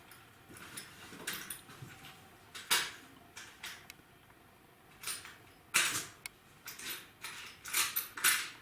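Scattered light metal clicks and scrapes of hand tools and valvetrain parts, the rocker arms, being handled and moved, with short pauses between.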